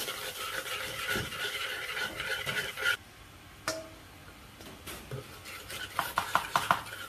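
A metal spoon stirring in a metal wok, scraping against the pan, going quieter about three seconds in, with a run of quick short scrapes near the end.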